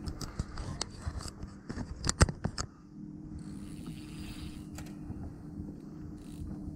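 A run of irregular sharp clicks and knocks from handling in a small boat for the first few seconds, the loudest about two seconds in, over a steady low hum.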